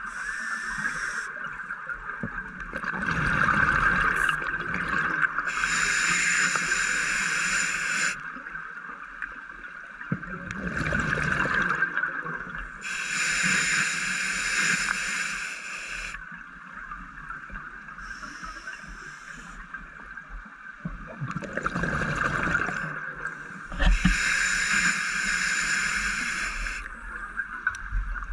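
Scuba diver breathing through a regulator underwater: three slow breaths, each a rush of exhaled bubbles followed by the hiss of the regulator delivering air, over a steady high whine.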